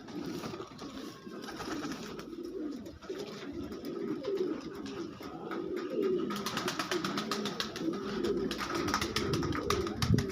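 Pigeons cooing continuously, their calls overlapping. From about six seconds in, a rapid run of clicks and rustles joins them.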